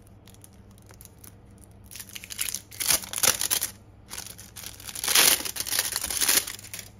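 Clear plastic packaging sleeve crinkling as a frosted task card is pulled out of it, in two spells of rustling, about two seconds in and again about five seconds in, the second the louder.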